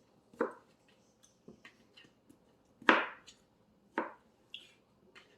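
Knife cutting canary melon, with three sharp knocks (the loudest near the middle) and lighter clicks between.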